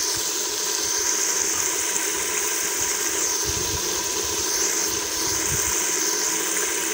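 Black chickpeas and masala sizzling in oil in a pressure-cooker pot while being fried down (bhuna), a steady hiss.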